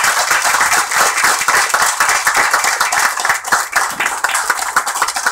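A small group of people applauding: dense, steady hand clapping.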